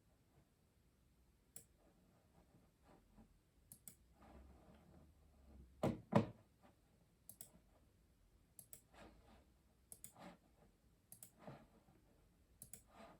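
Custom mechanical keyboard keys being pressed slowly and unevenly, a few keystrokes every second or two rather than steady typing, with two heavier strokes in quick succession about six seconds in.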